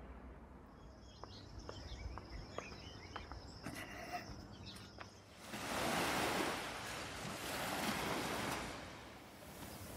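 Waves washing on the shore, a broad rush that swells about halfway through and eases off near the end. Before it, faint background with a thin steady high tone and a few scattered clicks.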